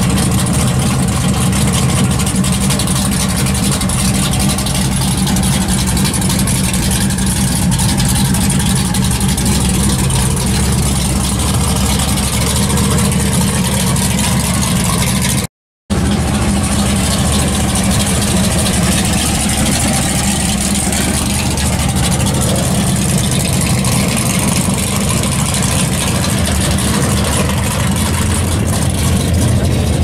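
Classic muscle car engine idling steadily. The sound cuts out for a moment about halfway, then carries on with more engine and car noise.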